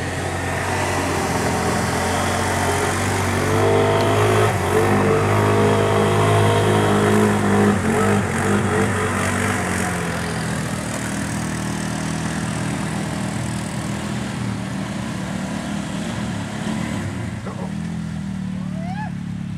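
ATV engine running under throttle. It revs up a few seconds in, holds higher, then eases back about halfway through.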